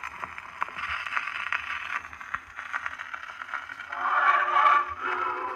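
Victor Victrola VV-50 wind-up portable phonograph with its needle set into the lead-in groove of a spinning Vogue picture record: scratchy surface hiss and crackle. About four seconds in the recorded music begins, its sound confined to the middle range.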